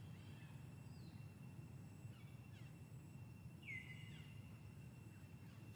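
Faint forest ambience: a steady low rumble, a few faint short falling bird chirps and a thin steady high tone, with one louder chirp about four seconds in.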